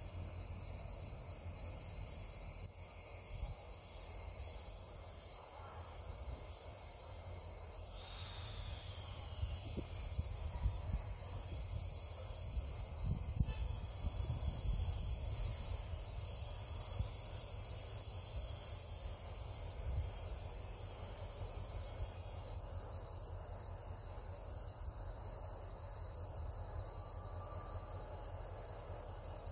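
Insects trilling steadily: a continuous high-pitched buzz with a regular pattern of shorter chirps beneath it, over a low rumble.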